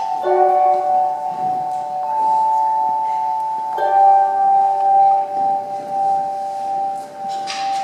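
Slow music of ringing, held notes. A new chord is struck about a quarter second in and another about four seconds in.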